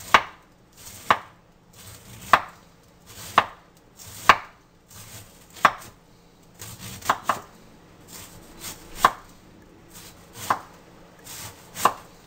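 Chef's knife slicing a wedge of cabbage into fine shreds on a wooden cutting board. Each cut ends in a sharp knock of the blade on the board, roughly once a second and not quite evenly spaced.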